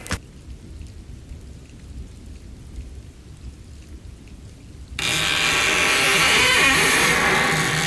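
Thunderstorm sound effect: a faint low rumble, then about five seconds in a sudden loud burst of thunder and heavy rain that holds for the rest of the stretch.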